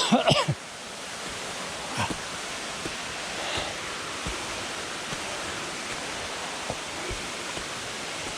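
Steady rush of a jungle waterfall, an even wash of falling water, with a few faint knocks along the way.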